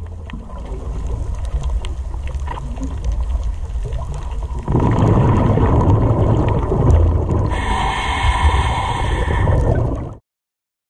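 Underwater ambience picked up by a camera below the surface: a steady low wash of water noise. It steps up in loudness about halfway through, and a brighter hiss with faint steady tones joins in later. The sound cuts off suddenly just before the end.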